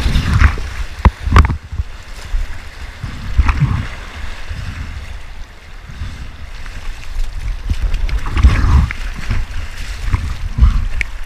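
River whitewater splashing and sloshing around a helmet camera held at the water's surface by a swimming kayaker, with uneven low rumbling surges of water over the microphone. A few sharp splashes come near the start, and arm strokes slap the water near the end.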